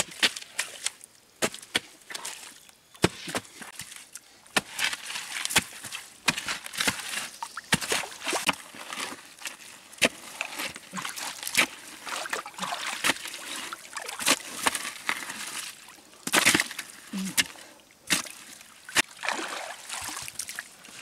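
Wet mud being dug out with a bamboo pole and by hand in shallow muddy water: irregular sharp knocks and scrapes, with sloshing and splashing of the muddy water.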